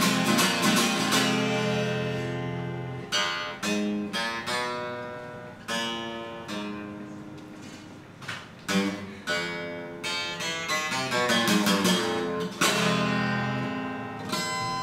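Solo acoustic guitar played without singing: chords struck and left to ring out and fade, with quicker strummed strikes in between and a full chord ringing near the end.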